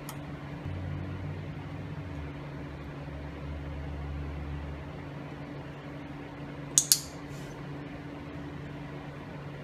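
A training clicker is pressed and released about seven seconds in, giving two sharp clicks in quick succession: the clicker-training marker for the cat's correct response. A steady low mechanical hum runs underneath.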